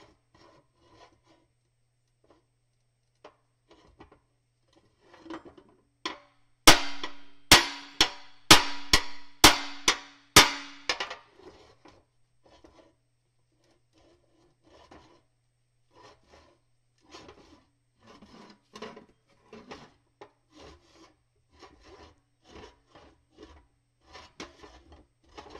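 A block is scraped back and forth over the steel of a warped excavator stick in short strokes, about two a second. A little over six seconds in comes a quick run of seven or eight hard hammer blows, about two a second, with a steady metallic ring under them as the warped steel is pounded back into line.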